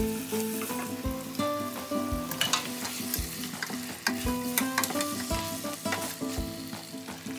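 Meat pieces sizzling and frying in a steel pot, stirred with a wooden spoon, with crackles and spoon scrapes over a steady hiss. Background music with notes and a steady beat about once a second plays under it.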